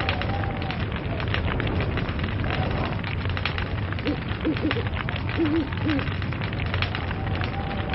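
Log fire burning, with dense, rapid crackling and popping over a low steady rumble. A few brief low wavering tones sound about halfway through.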